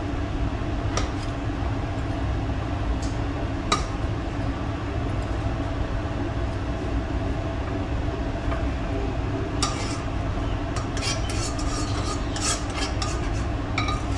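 A metal utensil clinking and scraping against a frying pan as honey-coated fried fish pieces are scraped out onto a serving plate: a few separate clinks at first, then quick, repeated clinks and scrapes near the end, over a steady low hum.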